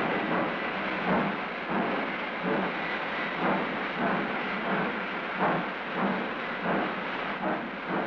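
Union Pacific 9000-class 4-12-2 steam locomotive starting a freight train: the exhaust chuffs at about one and a half beats a second over a steady rushing noise.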